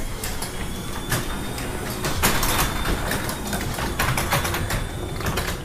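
Electric garage door opener raising a sectional garage door. The motor runs with a faint high whine while the door panels and rollers clatter and click along the tracks.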